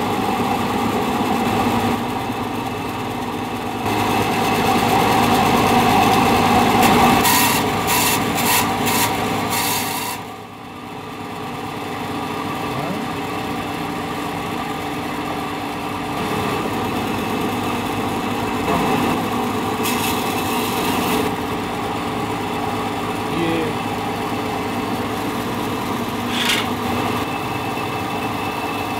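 Band saw running with a steady motor hum as its blade cuts a wooden hat block, giving a rasping sound during the cuts. The sound drops briefly about ten seconds in.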